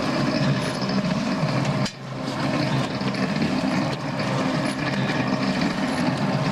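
Homemade concrete mixer running, its drum turning with a steady mechanical churning rattle. The sound dips briefly about two seconds in, then carries on.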